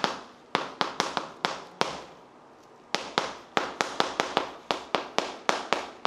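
Chalk tapping and clicking on a chalkboard as a maths formula is written: a run of short, sharp, irregular taps with a brief pause about two seconds in.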